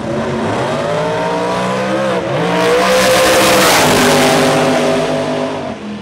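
Two Pro Mod drag cars launching off the line and accelerating hard down the strip, engine pitch climbing with a drop at a gear change about two seconds in and another near four and a half seconds. The sound is loudest mid-run and falls away near the end as the cars pull into the distance.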